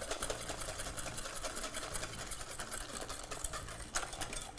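Wire whisk rattling rapidly against a stainless steel bowl, in a fast, steady run of small clicks, while hot milk is poured in and whisked into egg yolk and sugar.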